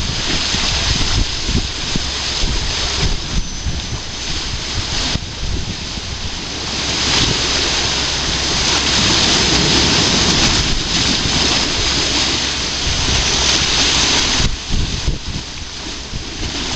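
Wind buffeting the microphone over the steady rushing of a large river whirlpool, formed where intake pipes draw water down to fill a lock chamber. The noise swells louder for several seconds in the middle, then eases.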